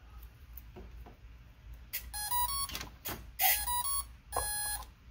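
Brushless motor sounding its speed controller's power-up beeps as the flight battery is connected: a click, then a quick run of three rising tones, heard twice, then a longer steady beep near the end. The tones show the ESC has power and has initialised.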